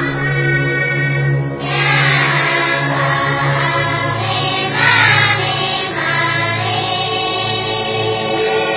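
Background music: a choir singing long held notes over sustained low chords, swelling about two seconds in and again around five seconds.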